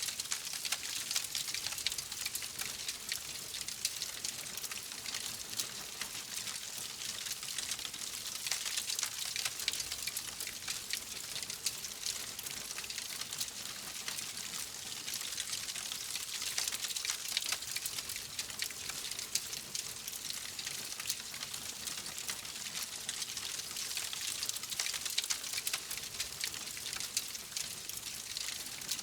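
Wood fire crackling steadily in a fireplace: a dense run of small pops and snaps over a soft hiss.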